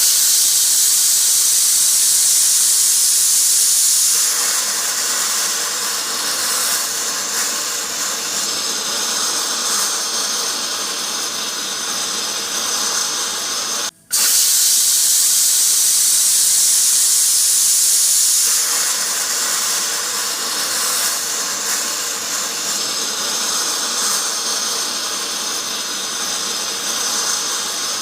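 Pressure cooker hissing steadily as steam escapes under pressure. It starts as a thin, high hiss and turns fuller and lower about four seconds in. It cuts out for an instant halfway through, then the same pattern repeats, as a loop.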